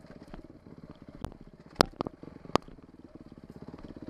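Dirt bike engine running steadily at low revs on a trail ride, with several sharp knocks and clacks from the bike as it rolls over the rough ground.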